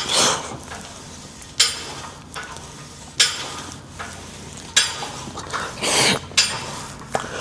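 Metal clinking from a cable machine's weight stack, once with each rep, about every one and a half seconds, each clink followed by a short rush of noise.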